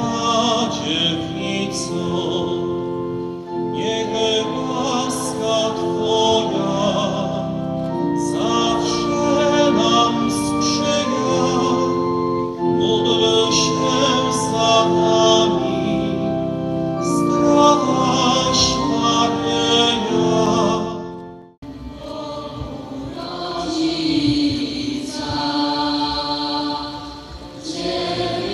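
Choir singing a hymn in long held notes with sustained accompaniment. The music breaks off suddenly about three-quarters of the way through, and a different passage of choral singing begins.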